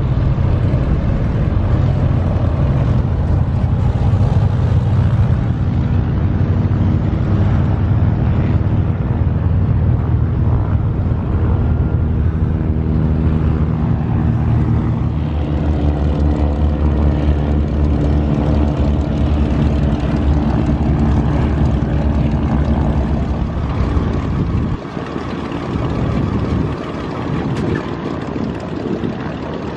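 Piston-engine light airplanes running on the ground: a steady propeller drone over heavy low rumble. It drops in level about 25 seconds in.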